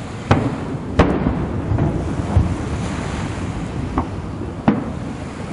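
Aerial fireworks shells bursting in a series of sharp booms, four reports with a low rumble between them; the loudest comes about a second in.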